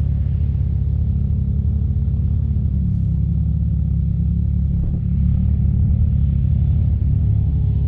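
Side-by-side UTV engine running steadily, getting a little louder about five seconds in.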